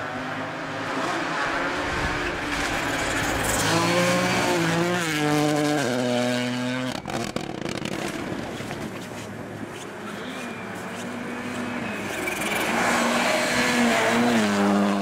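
Rally cars at full throttle on a special stage: an engine's pitch climbs and drops in steps through gear changes, breaks off abruptly about seven seconds in, then a rally car engine builds up loud again toward the end.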